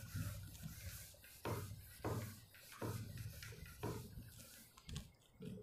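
Faint, short strokes of writing on a board, a handful of irregularly spaced scrapes.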